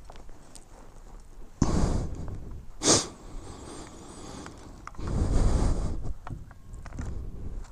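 A person breathing close to the microphone: a puff of breath, a short sharp sniff, then a longer breath out, with a few faint small clicks of handling.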